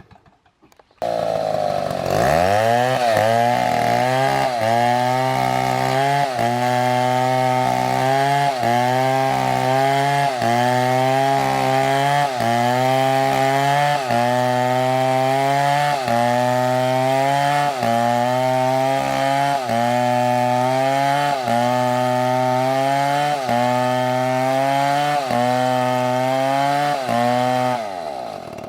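Large STIHL chainsaw starting up after a short silence and revving up, then running at full throttle through a cut. Its pitch dips and recovers about every two seconds as the chain loads in the wood.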